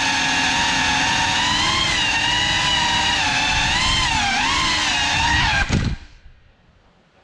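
Geprc Cinelog 35 cinewhoop's brushless motors and ducted propellers whining in fast flight, the pitch rising and falling with throttle. Nearly six seconds in, the quad crashes with a few sharp knocks and the motors cut out abruptly.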